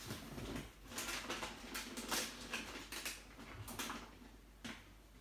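Paper gift bags and tissue paper rustling and crinkling in short irregular bursts, as a small child rummages in a gift bag.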